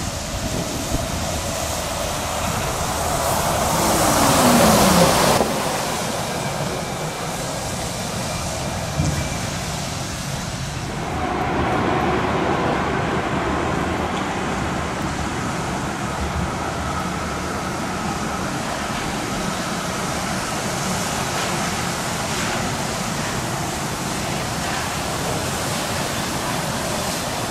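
City buses passing on wet roads, their tyres hissing. One bus goes by close about four to five seconds in, its engine pitch falling as it passes. After that there is steady bus-station traffic noise.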